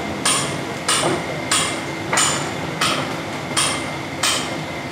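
Steady rhythmic knocking: a hand tool strikes about three times every two seconds, each strike with a light metallic ring, as a worker chops at a mixture in a large metal tray.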